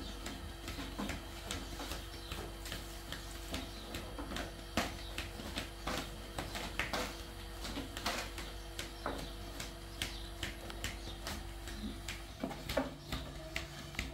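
A long thin wooden rolling pin rolling out flatbread dough on a round wooden board, making irregular clicks and knocks. A steady hum runs underneath.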